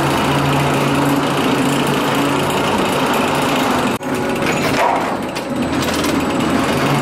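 Construction machinery running: a steady engine hum under loud, dense mechanical noise, broken by a brief sharp drop about four seconds in.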